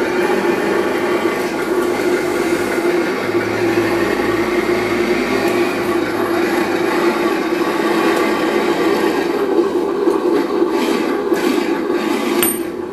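RC model sound module playing a simulated engine running sound through its small speaker: a steady drone, with a deeper rumble added for a couple of seconds about three seconds in.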